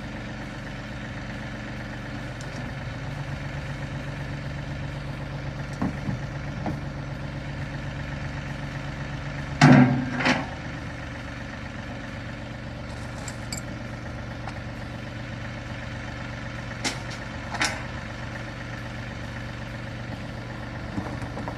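A vehicle engine idling steadily, with several sharp knocks and clanks over it, the loudest about ten seconds in and two more near the end, as fencing tools and gear are loaded.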